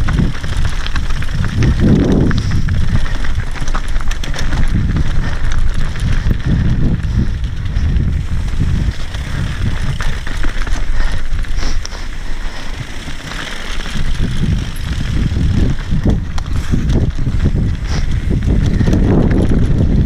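Mountain bike descending rocky singletrack: tyres rolling over loose rock and dirt, with the bike rattling and clattering over the stones. A steady low rumble of wind on the microphone runs under it.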